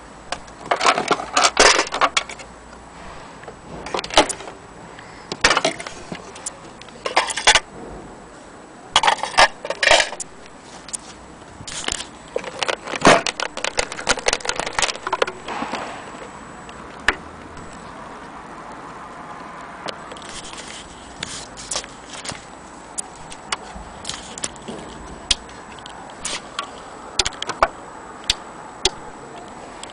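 Rustling and clicking handling noise as the sewing machine's soft fabric dust cover is lifted and moved, in irregular bursts for the first half, then only scattered clicks. The machine's motor is not running.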